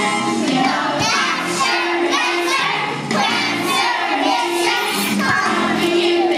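A group of young children singing a song together, with music playing along.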